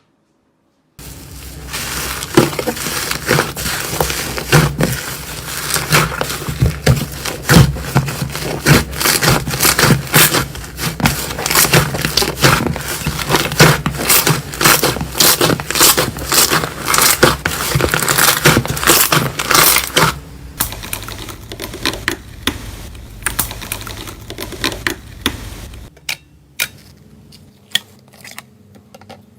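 Slime being squeezed and worked by hand, making a dense run of crackling and popping clicks that thins out to a few separate clicks near the end.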